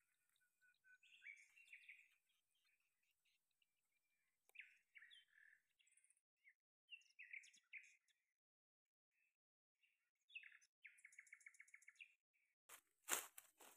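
Faint wild birdsong: scattered short chirps and calls, and near the end a rapid trill of evenly repeated notes, about nine a second. Just before the end there is a brief loud rustle, the loudest sound here.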